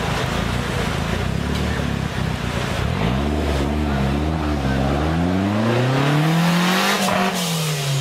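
Modified off-road 4x4's engine running at a steady low rumble, then revved up and down in a few short blips from about three seconds in, followed by one long rev that climbs and then falls near the end.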